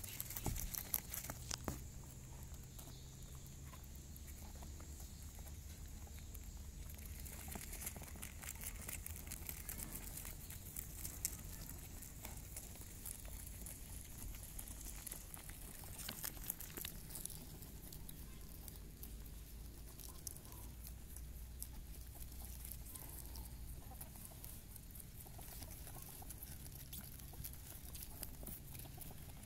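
Newborn rabbit kits squirming and scrabbling against their mother and the plastic mat as they nurse, with faint irregular clicks and rustling.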